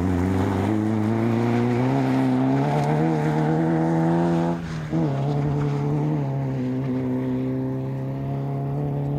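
Peugeot 205 rally car's engine running hard. Its pitch climbs steadily for about four and a half seconds, breaks off briefly with a drop in pitch, then holds lower and steady as the car pulls away.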